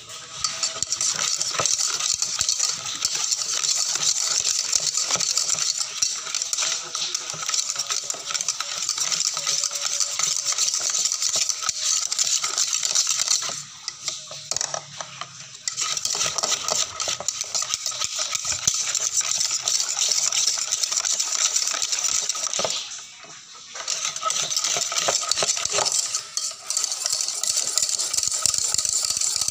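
Wire whisk beating thin martabak batter in a bowl: rapid, continuous clicking and scraping of the wires against the bowl, mixing the batter until smooth. The whisking pauses briefly twice, about halfway through and again later.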